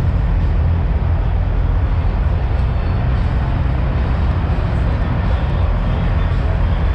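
Steady low rumble of semi-truck diesel engines idling, with an even background hiss and no break or change.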